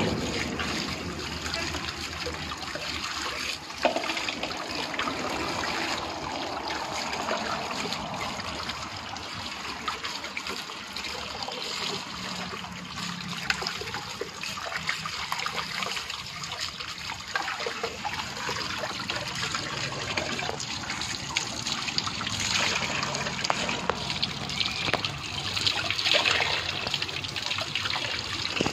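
A stream of water from a pipe pours steadily into a plastic bucket and splashes as a rooster is washed in it by hand.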